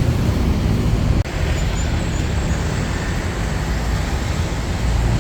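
Street traffic going by: a steady rumble of road vehicles.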